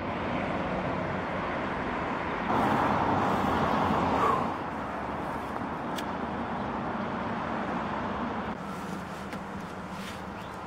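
Steady outdoor road-traffic noise, with one vehicle passing louder between about two and a half and four and a half seconds in.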